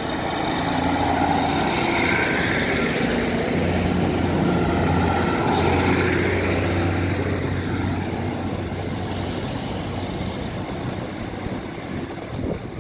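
Class 150 Sprinter diesel multiple unit departing, its underfloor diesel engines running under power as the train passes close by and pulls away. The sound grows a little fainter over the last few seconds.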